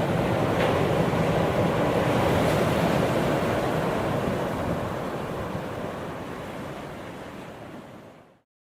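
Ocean surf breaking on a sandy beach, a steady rush of waves with no distinct tones, fading out over the last few seconds into silence.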